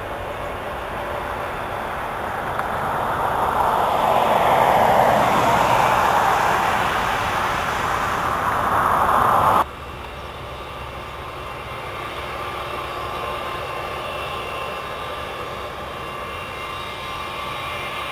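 Twin-jet airliner's engines at takeoff power as it climbs away, a loud rushing jet noise that swells and then cuts off abruptly about ten seconds in. Then a United Airlines Boeing 757's Pratt & Whitney turbofans spooling up for takeoff, a steady, high fan whine that slowly grows louder.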